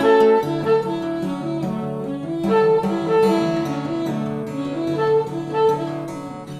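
Instrumental music: a melody of held notes over an accompaniment.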